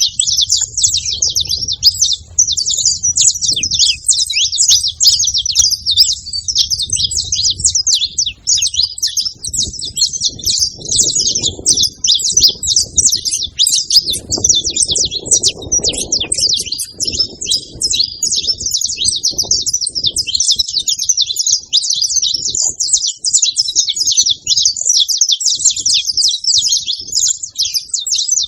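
A flock of saffron finches chirping and calling together at a feeder, many short high-pitched chirps overlapping in a constant chatter.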